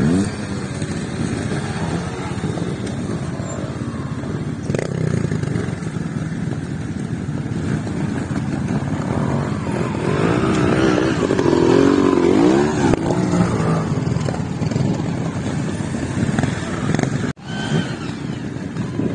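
Trial motorcycle engines running and revving as riders tackle a steep wooded section, the revs rising and falling in quick throttle blips for a few seconds around the middle.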